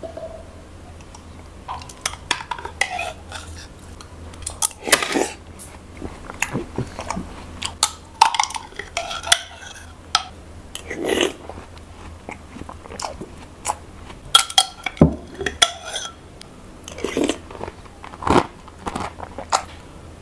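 Close-up eating and drinking: sips from a glass of milky watermelon sharbat, a metal spoon clinking against the glass, and chewing of soft watermelon pieces, in irregular bursts.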